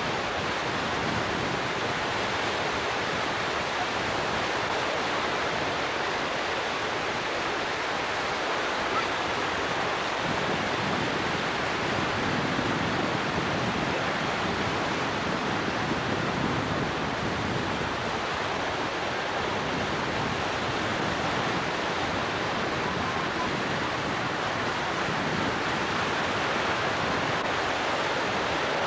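Ocean surf, a steady rush of waves breaking and washing in, with wind on the microphone.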